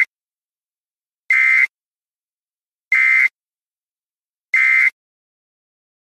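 Electronic weather-alert tone from a warning web page: a short, high, buzzy beep repeated about every 1.6 seconds. The tail of one beep is heard at the start, followed by three full beeps.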